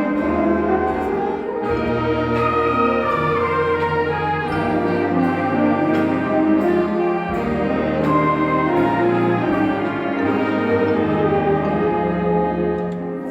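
A high school symphonic band playing: brass and woodwinds over sustained low bass notes that change every couple of seconds.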